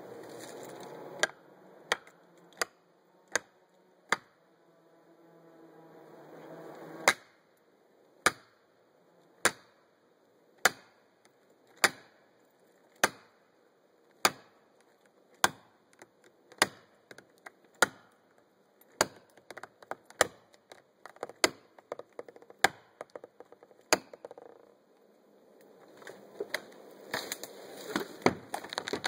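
Axe blows driving felling wedges into a large cedar's cut: single sharp strikes, steadily about one every 1.2 seconds through the middle. Near the end the strikes give way to quicker, irregular cracks over a rising rush of noise.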